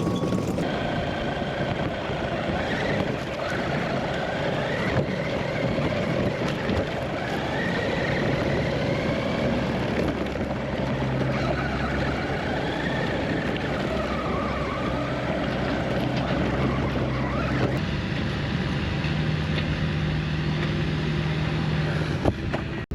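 Diesel engine of earthmoving equipment running under load, its pitch wavering up and down as the revs change.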